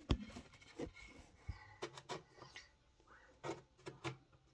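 Light, scattered taps and clicks of paintbrushes and painting things being handled, about eight separate small knocks with quiet between them.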